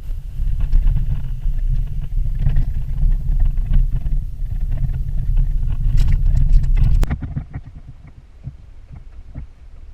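Low rumble of road and engine noise inside a moving car. About seven seconds in it cuts off suddenly, giving way to a much quieter low background with faint clicks.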